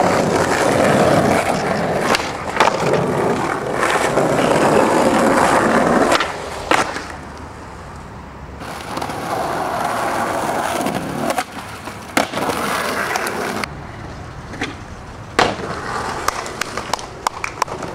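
Skateboard wheels rolling over paving stones, loud for the first six seconds and again in stretches later. Several sharp clacks of the board striking the ground come between the rolling, with a cluster of them near the end.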